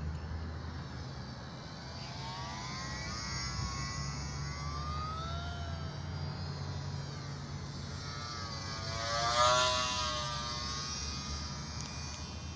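Electric motor and propeller of an E-flite J-3 Cub radio-controlled model plane whining as it flies circuits, its pitch rising and falling as it comes and goes. It is loudest about nine and a half seconds in, as it passes close by.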